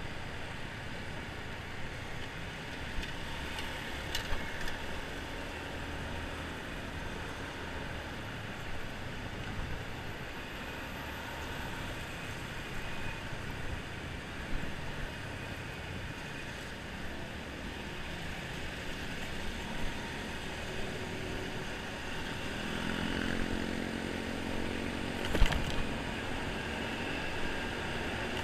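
Riding a Honda motor scooter through city traffic: steady engine, road and traffic noise. From about 23 seconds in, a deeper engine drone builds, and a single sharp click about 25 seconds in is the loudest sound.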